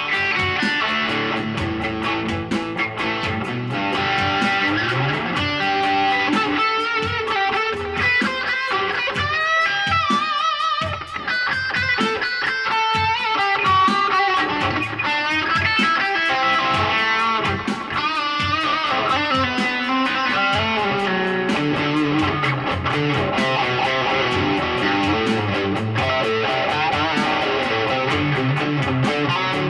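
PRS electric guitar playing a lead passage, with notes that bend and waver in pitch through the middle.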